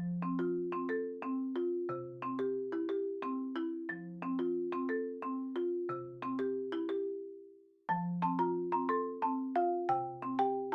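Background music: a light tune of quick marimba-like struck notes over held lower notes. It dies away about seven seconds in and starts over a second later.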